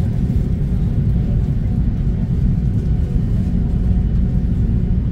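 Steady low rumble inside the cabin of an Airbus A330 taxiing, its Rolls-Royce Trent 700 turbofans running at idle.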